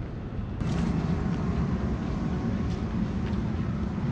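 Utsunomiya Lightline light-rail tram passing close by at low speed: a brief sharp noise about half a second in, then its steady low running hum and wheel rumble.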